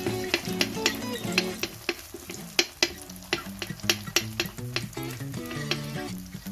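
Food sizzling in a frying pan while a spatula stirs it, tapping and scraping against the pan in sharp clicks a few times a second. Background music plays under it.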